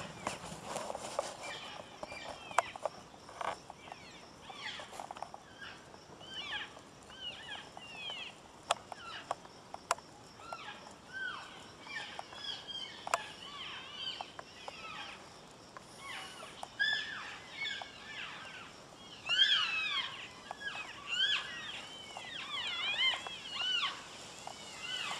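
Elk cows and calves calling to one another: many short, high mews and chirps, each rising then falling in pitch, growing thicker and overlapping in the second half, with a few sharp clicks.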